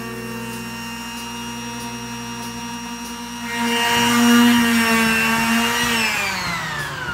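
Handheld electric power tool working a wooden board: a steady motor whine, louder and rougher for a couple of seconds in the middle, then switched off and winding down in pitch near the end.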